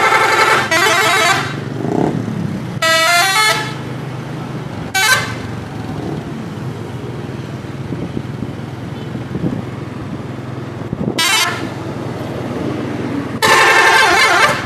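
Indonesian 'telolet' multi-note bus horn sounding in a series of blasts that step between notes: one at the start, one about three seconds in, short toots around five and eleven seconds, and a longer blast near the end. A steady engine hum runs underneath.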